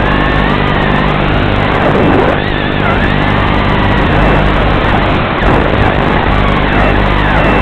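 FPV racing quadcopter's brushless motors whining, their pitch rising and falling continuously as the throttle changes, over a steady hum.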